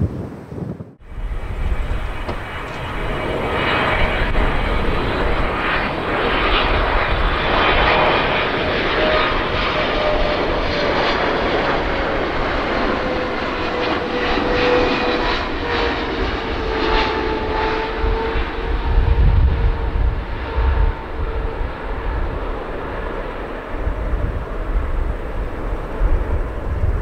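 Boeing 777-300ER jet engines (GE90-115B turbofans) running at approach power as the airliner passes low on final approach. It is a steady loud jet noise with a whine that slides slowly down in pitch as the aircraft goes by.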